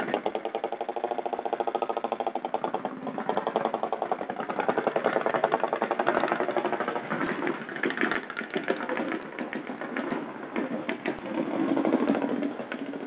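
An engine running with a rapid, even beat, swelling louder a few times.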